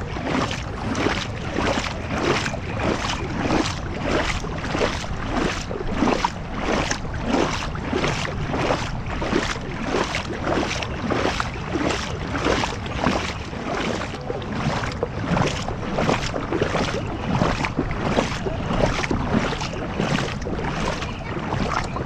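Heavy rain: a steady rush of water noise with a regular pulse about two to three times a second.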